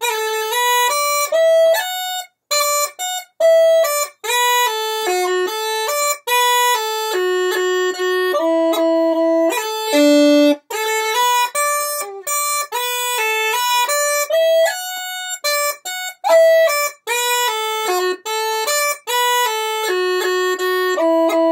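Uilleann pipes chanter playing the first part of an Irish reel at a moderate tempo, without drones. The melody is a quick run of separate notes, many clipped apart by brief silences, with rolls on the F sharp and the E.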